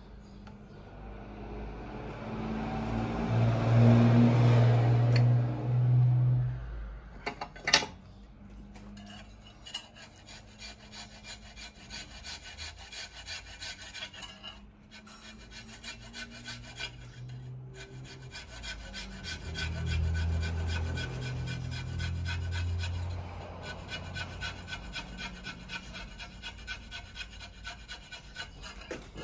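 Hand file rasping back and forth on a clutch-cable barrel fitting, a steady run of quick scraping strokes as the piece is shaped down to size. A louder low rumble swells and fades in the first few seconds, and a weaker one comes about two-thirds of the way through.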